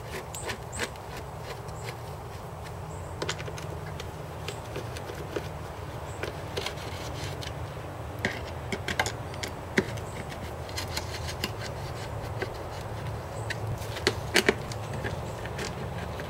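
Hand screwdriver driving screws into a boat seat's metal slide-track mounting plate: scattered small clicks and scrapes of metal on metal, the sharpest near the end, over a steady low hum.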